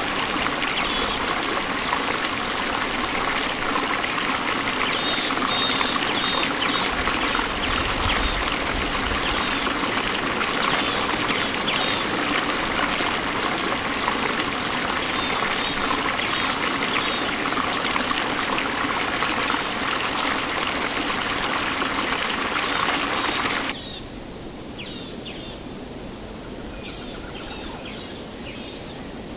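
Steady rush of running water with bird chirps over it. It cuts off suddenly near the end, leaving a quieter outdoor background with birds still chirping.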